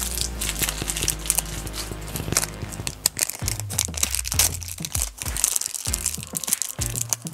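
Plastic packaging crinkling and tearing as a small toy blind bag is handled and opened, with many quick crackles, over background music with a steady bass line.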